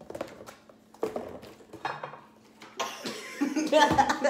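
Knocks and clatter of kitchen items on a granite countertop: a plastic bottle of vegetable oil set down and plastic measuring cups handled, several sharp knocks in the first two seconds. Voices and laughter start near the end.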